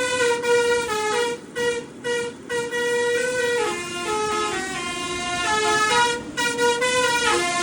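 Truck's musical horn playing a tune: a run of short notes stepping up and down in pitch, with a few longer held notes in the middle.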